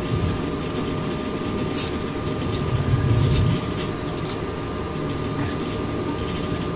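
Steady low rumbling room noise with a constant hum, with faint rustles and small knocks as a cloth doll is picked up and handled; the rumble swells briefly around the middle.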